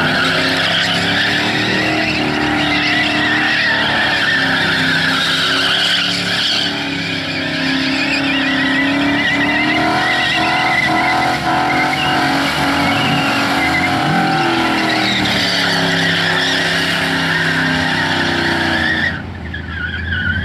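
Holden VS Commodore V8 doing a burnout: the engine is held at high revs, rising and falling, over a continuous squeal of spinning tyres. The sound dips briefly near the end.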